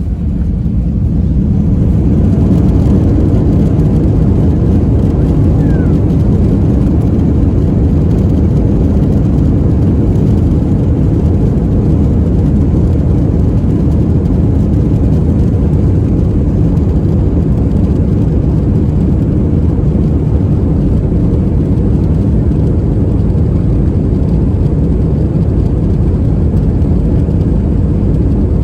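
Jet airliner's engines and airflow heard from inside the cabin during takeoff: a loud, steady, low rumble that builds over the first two seconds and then holds.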